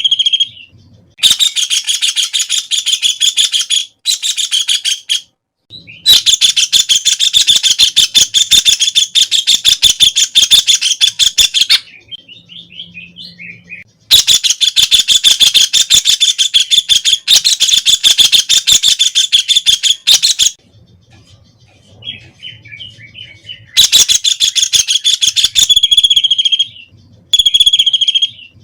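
White-throated kingfisher calling: four long, fast trills of rapidly repeated notes, each lasting several seconds, with softer chatter between them and a few shorter separate notes near the end.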